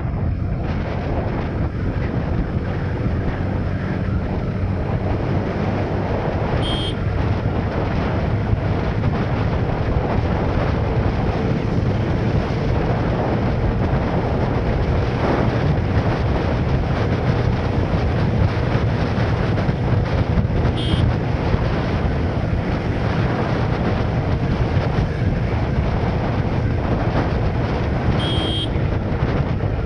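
Motorcycle cruising steadily, its engine and road noise under heavy wind buffeting on the microphone. Three brief high beeps cut through along the way.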